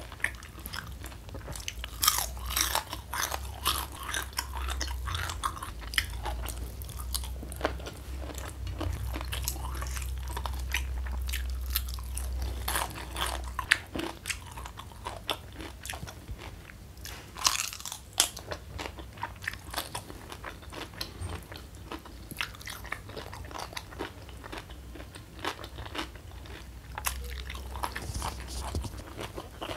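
Close-miked chewing and crunching of crispy fried mushroom, with many sharp crackling bites. The loudest crunches come about two seconds in and again around seventeen seconds.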